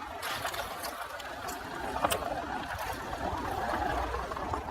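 Skoda Yeti driving off-road: a steady rushing noise from the moving car, with a sharp knock about two seconds in.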